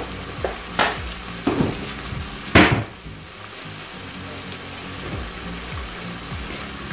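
A metal spoon stirring a pot of hot sugar-and-salt sauce, knocking and scraping against the pot a few times, loudest about two and a half seconds in. After that comes a steady hiss from the steaming liquid.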